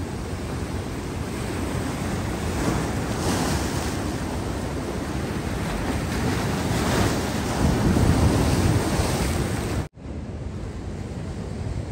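Ocean surf surging and breaking against rocks, with wind on the microphone. The surf swells several times and is loudest about eight seconds in. Near the end it cuts out for an instant, and after that the surf is quieter.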